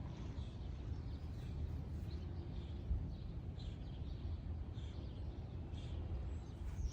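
Faint, short bird chirps repeating every half second or so over a steady low outdoor rumble.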